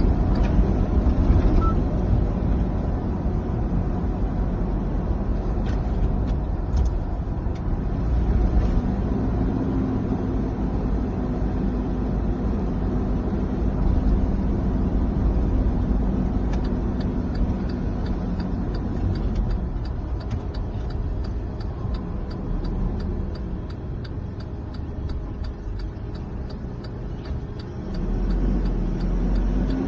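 Mitsubishi Fuso Canter's 4P10 four-cylinder turbo diesel running steadily, with a fast, even ticking joining in about halfway through.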